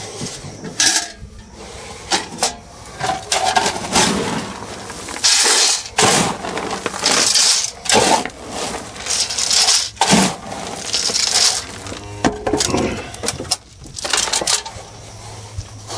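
Cattle feeding from buckets: irregular clattering, knocking and crunching as the cows push their heads into the feed buckets.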